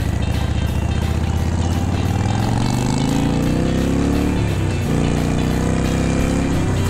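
Motorcycle engine under way with wind rush: it holds steady, then revs climb, drop with an upshift about five seconds in, and climb again toward another shift at the end.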